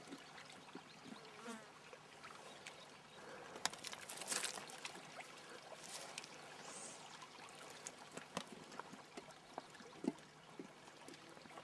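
Faint running water of a shallow river, with insects buzzing, a few light clicks and a brief hiss about four seconds in.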